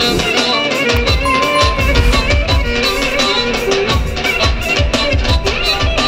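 Loud Roman havası dance music: an ornamented plucked-string melody over a steady drum beat.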